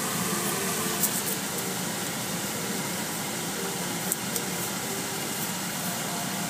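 Steady hiss of air-conditioning or ventilation inside a waiting car's cabin, with faint music underneath and a couple of light clicks.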